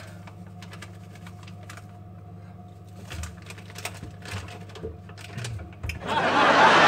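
Scattered light clicks and crinkles of a plastic packet being handled, over a steady low hum. A loud rushing noise starts near the end.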